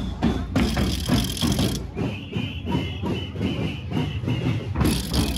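A crowd of marchers walking along a paved street: a busy mix of footsteps, movement and indistinct noise, with two stretches of louder hiss, about a second in and near the end.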